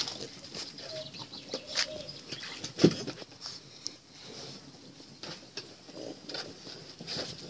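French bulldog puppies splashing and scrambling in and around a shallow plastic paddling pool, paws scuffing and tapping on the plastic. There is one loud thump about three seconds in.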